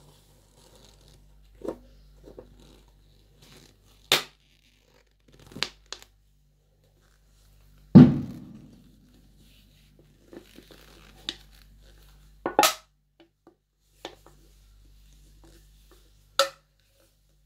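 Black leather-gloved fingers tapping and gripping an aluminium Coca-Cola can: scattered sharp taps and clicks, with one louder thunk about eight seconds in that rings on briefly.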